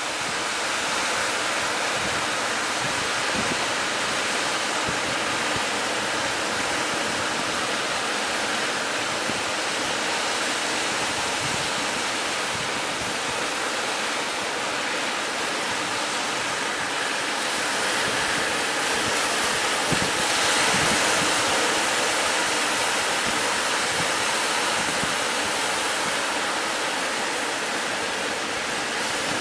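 Ocean surf breaking and washing up a sandy beach in a steady rush, a little louder around twenty seconds in.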